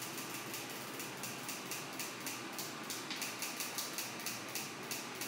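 Kitchen clean-up work: a rapid, even run of light clicking strokes, about five a second.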